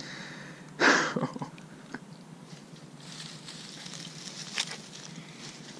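Close handling noise as the camera is moved and set down in grass: a loud rustle about a second in, then a few sharp clicks and soft rustling.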